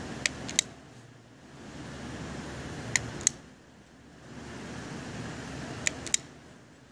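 Wall switch clicking three times, each press a click in and a click back out about a third of a second apart, switching smart-glass film between clear and frosted. A background rushing noise swells and fades between the presses.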